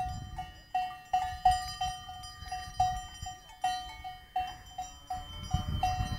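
Cowbells clanking in an uneven rhythm, about two or three strokes a second, over a low rumble.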